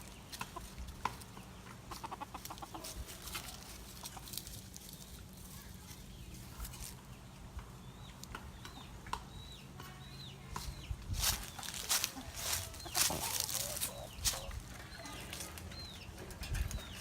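Chickens clucking and calling, with scattered sharp knocks and clicks that are loudest in a cluster about eleven to fourteen seconds in. A faint steady low hum runs underneath.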